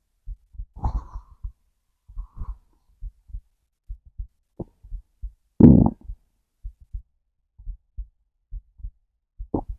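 A heartbeat thumping low and steady, about one double beat a second, heard together with a hungry stomach. Short stomach gurgles come about a second in, a louder growl in the middle, and a brief one near the end.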